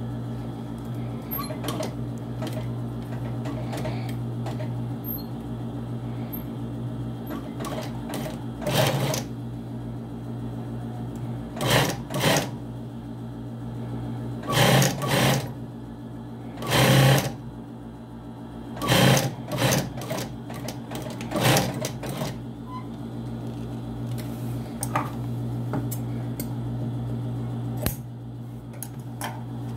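Sewing machine stitching a coat collar in several short bursts, over a steady low hum.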